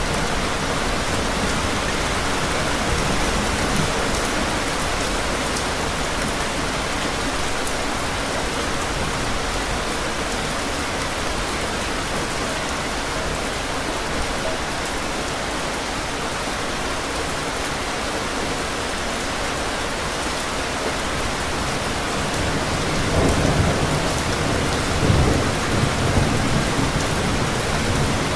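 Steady rain falling on hard surfaces, with a low rumble of thunder rolling through near the end.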